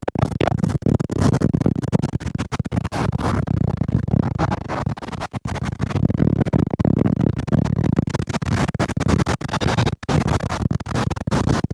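Strong cyclone wind buffeting the camera's microphone: a loud, rough rumble that keeps dropping out for an instant.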